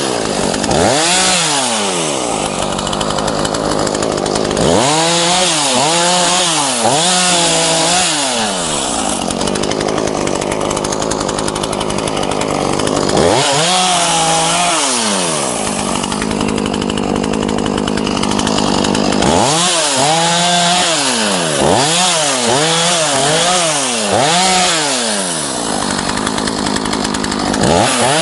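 ZimAni 450 two-stroke petrol chainsaw bucking a felled dry spruce trunk. It runs at full throttle in the cut for long stretches, broken several times by runs of quick revs that rise and fall in pitch.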